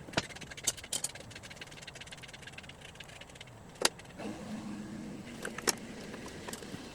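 Hand tools working on metal mower parts during disassembly: several sharp clinks and knocks, a run of rapid ratchet-like clicks about a second in, and a brief low hum about four seconds in.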